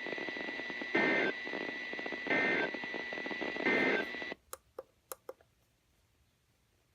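Three short bursts of EAS end-of-message data tones, a warbling two-tone digital squawk, over weather-radio hiss with a faint steady whine, closing the flash flood warning. About four seconds in, the hiss cuts off and a handful of sharp clicks follow.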